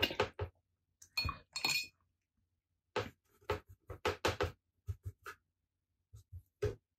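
Paintbrush clinking and tapping against the hard dishes of a watercolour set-up while red paint is picked up and mixed: a scatter of light knocks, with a short ringing clink about a second in.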